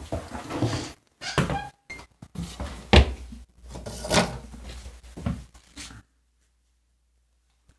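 Handling noise from a phone being carried and moved about: irregular knocks, bumps and rustling, with the loudest thump about three seconds in and another strong one a second later. The sound stops abruptly about six seconds in.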